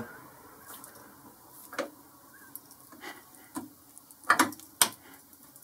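A few separate metallic clicks and knocks from the Boxford lathe's headstock back gear and engaging lever being handled. The loudest is a short cluster of knocks about four seconds in, followed by a single sharp click.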